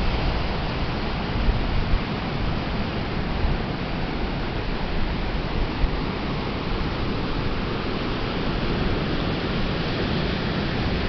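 Atlantic Ocean surf washing onto the beach: a steady, continuous rushing hiss with no separate breaking crashes standing out.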